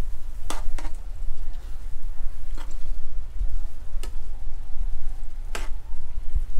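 Metal spatula stirring peas and potatoes in a kadhai, scraping and knocking against the pan about five times, over a steady low rumble.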